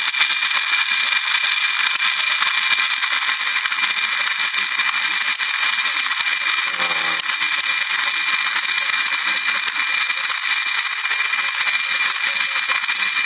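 Throttle body motor of a 1993 Mercedes 600SL, a small brushed electric motor, spinning freely and steadily after its stuck brushes were trimmed and the brush guides cleaned. It gives a constant high whine over a steady hiss.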